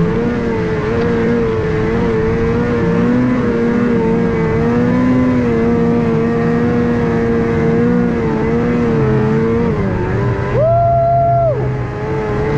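Snowmobile engine running steadily, its pitch wavering slightly as it climbs a snowy slope. About ten seconds in it revs up sharply for about a second, then drops back.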